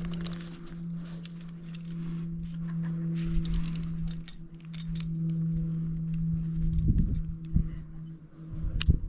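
Metal climbing gear clinking and jingling in scattered small clicks as carabiners and a rappel device are handled, over a steady low hum.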